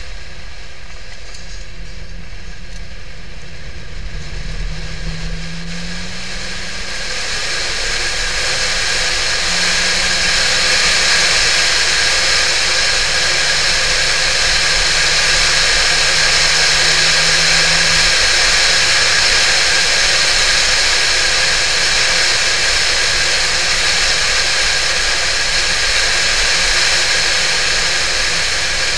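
Porsche 911 (996) flat-six engine driving at speed. Its low note rises and drops back in pitch several times in the first half, while a loud, steady wind and road rush builds from about seven seconds in as the car gathers speed.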